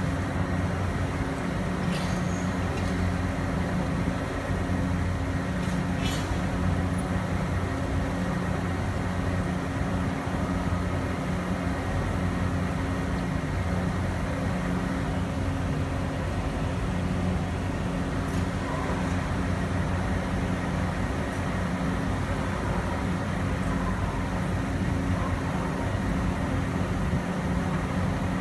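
Steady low mechanical drone, a machine or engine running at constant speed, with a light wash of background noise and no change in pitch or level.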